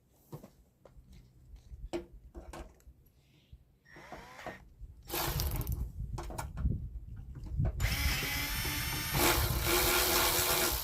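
Power drill drilling out a rivet, with the bit being sized up until it cuts the rivet head free. A few light handling clicks come first. About four seconds in the drill spins up with a rising whine, then runs in short spurts, and over the last three seconds it runs loud and steady under load.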